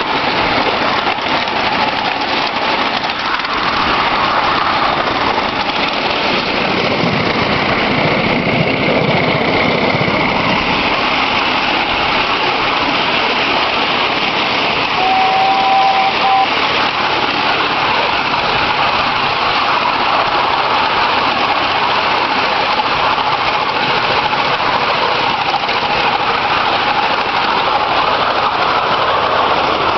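Two miniature scale models of SAR Class 15F locomotives hauling a loaded ride-on passenger train, a steady mix of running noise and hiss from the train on the move. A brief high two-note tone sounds about halfway through.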